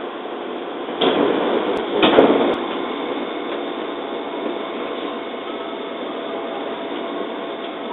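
Standing JR 205-series electric train: over its steady idle hum, two short air hisses from its pneumatic equipment, about a second in and again at two seconds, the second louder.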